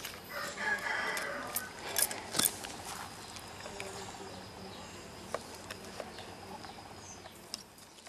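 Light knocks and clicks of a child's plastic toy tea set and mud cakes being handled on a stone, over steady outdoor background noise. The knocks are most frequent in the first few seconds.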